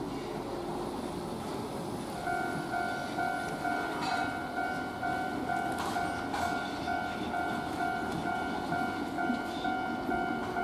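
A Keihan 1000-series electric train running as it pulls away, its wheels clicking over the points. From about two seconds in, a repeating electronic warning bell pulses steadily about twice a second.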